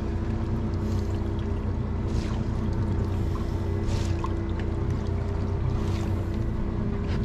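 Boat engine running steadily with a constant low hum.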